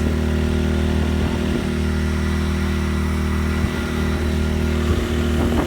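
Westinghouse iGen2500 inverter generator running at a steady pitch under load from a 1,500-watt heat gun.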